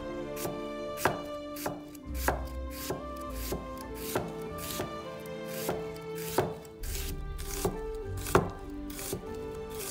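A cleaver slicing a peeled onion on a thick wooden end-grain chopping board. The blade knocks on the wood in a steady rhythm, roughly one and a half strokes a second.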